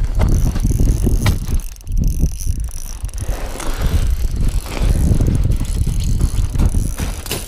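Ice-fishing reel ratcheting and clicking as a hooked brook trout is played and reeled in, over a steady low rumble of handling and movement close to the microphone.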